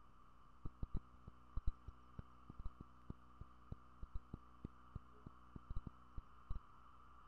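Steady electrical hum from a nest camera's audio feed, with irregular low pops and clicks several times a second that start about two-thirds of a second in.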